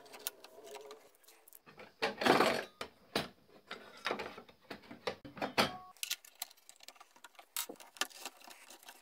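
Metal clicks, knocks and rattles of a Festool TS55 plunge saw and its blade being handled during a blade change from the front of the table, with a longer, louder scraping noise about two seconds in.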